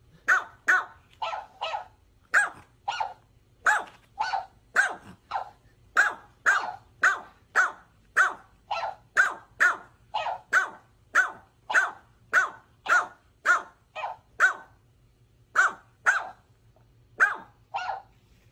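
Small dog barking over and over in short, sharp yaps, often in quick pairs or runs of two or three, about two barks a second.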